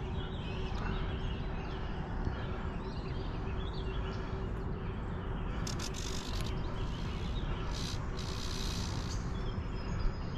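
Small birds chirping over a steady low rumble of outdoor noise, with two brief hissy bursts, about six seconds in and again around eight to nine seconds.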